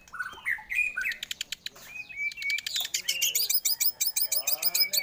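White-rumped shama (murai batu) singing a fast, varied song: whistled chirps, a rapid clicking trill, then quick runs of repeated high notes from about three seconds in.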